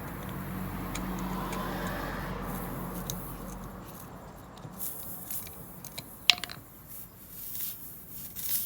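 Air leaking from a punctured run-flat tire as a screw is backed out of the tread with a screwdriver: a soft hiss for the first few seconds, with scattered small clicks of the tool and one sharper metallic click about six seconds in.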